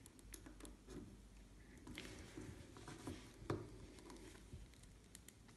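Faint small clicks and rustling as hands handle and pose a 6-inch Hasbro Black Series plastic action figure, with one sharper click about three and a half seconds in.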